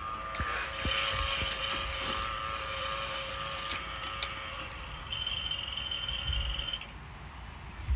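Battery-operated toy police helicopter running: a steady electronic whir made of several even tones, with a higher tone joining about five seconds in, and everything stops about a second before the end. A few sharp plastic clicks as the toy is handled.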